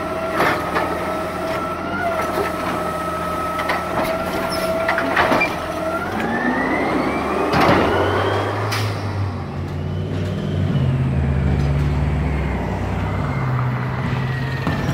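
Garbage truck running with a steady whine for about six seconds, then a whine that rises in pitch as the engine note climbs, with a few knocks along the way.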